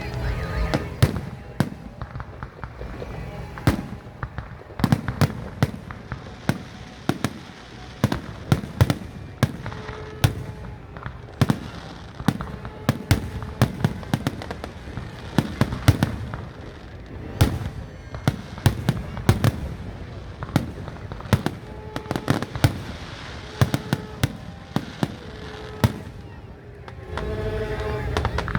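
Fireworks display: aerial shells going off in a rapid, irregular series of sharp bangs, several a second, with crackling in between. The bangs keep up for the whole stretch and are the loudest sound.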